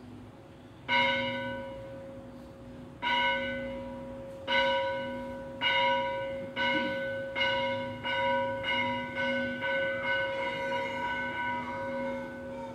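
A metal bell struck over and over, the strokes slow at first and then coming faster and faster. Each stroke rings on into the next.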